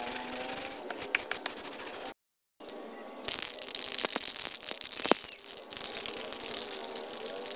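Sandpaper rubbed by hand over a plastic motorcycle tank cover, a steady rough scratching. After a brief cut to silence, an aerosol spray-paint can hisses loudly with a crackly rush, spraying red paint onto the cover.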